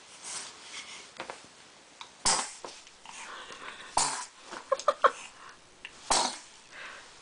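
A baby sneezing three times, about two seconds apart, each a short, sharp burst.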